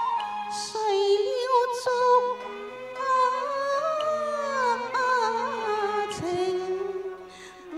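Cantonese opera duet music: a woman's voice sings a wavering, ornamented melody over instrumental accompaniment, with a falling glide in the line midway and a brief drop in loudness near the end.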